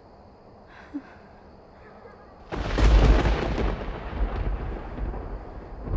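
Thunder: a sudden loud rumble about two and a half seconds in that rolls on and slowly fades, after a faint hush with a single soft click about a second in.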